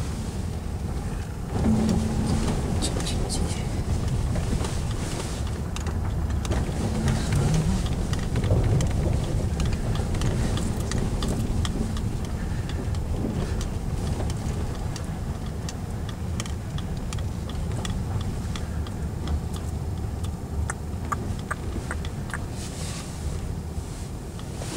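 Car driving slowly along a snow-covered road, heard from inside the cabin: a steady low rumble of engine and tyres with many small scattered clicks and crackles.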